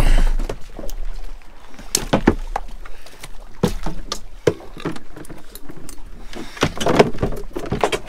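Irregular knocks, clicks and clatter of rods, tackle and fish being handled on the deck of a small fishing boat, over a low steady rumble.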